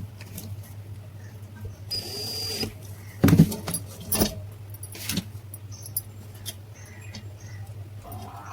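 Metal parts of a table fan clinking and knocking as they are handled during repair, with a few sharp knocks in the middle over a steady low hum.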